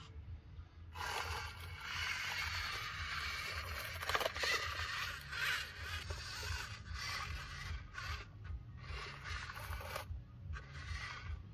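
Repeated, irregular bursts of scraping through loose grit, as from a model construction vehicle working the material, over a low steady hum.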